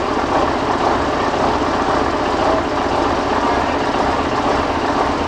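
Scania 140 Super's 14-litre turbocharged V8 diesel idling steadily.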